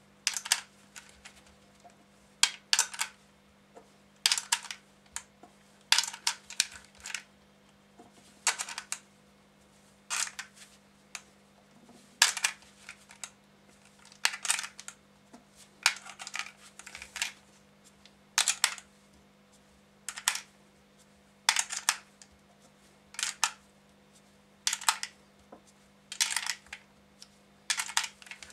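Brass 9 mm cartridges clicking one at a time into the spiral track of an opened Suomi KP31 drum magazine. Each round gives a short cluster of sharp metallic clicks, coming about every second and a half to two seconds.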